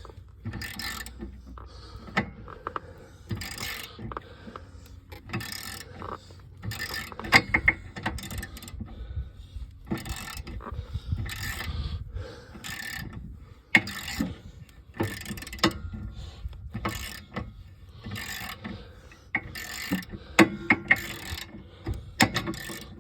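Socket ratchet clicking in repeated short strokes as a seized 14 mm brake caliper guide-pin bolt is slowly worked loose.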